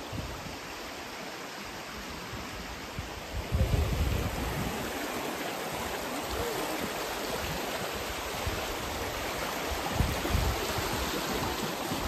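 Steady rush of a fast-flowing river running over rocks. Wind buffets the microphone with louder low rumbles about four seconds in and again near ten seconds.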